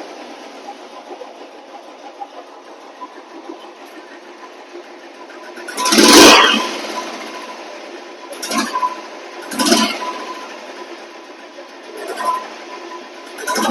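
Royal Enfield Classic 350 single-cylinder engine idling through a new BS3 silencer, with a steady beat, then revved in short throttle blips: a big one about six seconds in and four smaller ones after. The exhaust has some thump on revving, though not as much as the old Classics.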